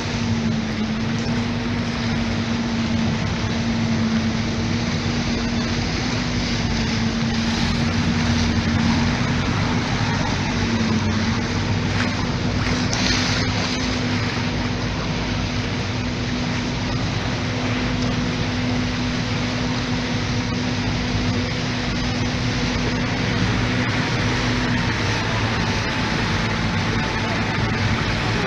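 Motorboat engine running with a steady drone, over the rush of water along the hull.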